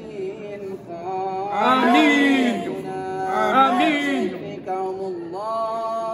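Melodic Arabic chanting of a Muslim supplication by a man's voice, drawn-out notes with ornamented turns, ending on a long held note, over a steadier lower voice.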